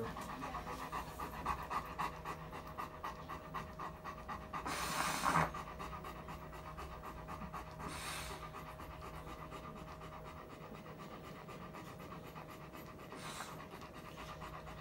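Rottweiler panting fast and steadily, open-mouthed, with a louder rush of noise about five seconds in.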